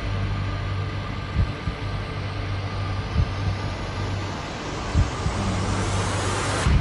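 Trailer sound design: a steady low hum, with a deep thud about every second and a half. Over it a hissing riser climbs in pitch and cuts off suddenly near the end.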